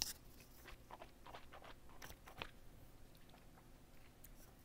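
Near silence with faint scattered mouth noises, small clicks and smacks of lips and tongue picked up close on a headset microphone. There is a slightly stronger rustling click at the very start as fingers brush the microphone.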